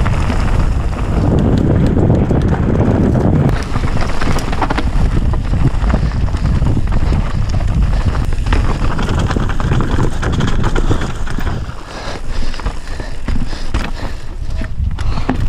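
Mountain bike riding down a dirt and rocky trail: wind buffeting the microphone over the tyres crunching on the ground, with steady clattering and knocking as the bike rattles over stones and bumps. The noise eases briefly a few seconds from the end.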